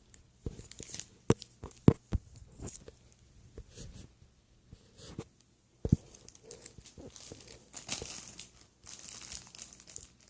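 Irregular crinkling and rustling, like packaging or plastic being handled, broken by a few sharp knocks. The rustling thickens in the second half.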